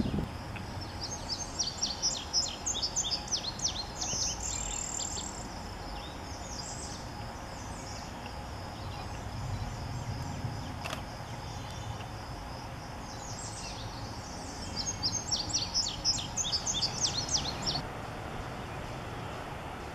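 A songbird singing twice, each song a run of rapid high notes lasting about four seconds, the second starting about fourteen seconds in, over a steady low background rumble.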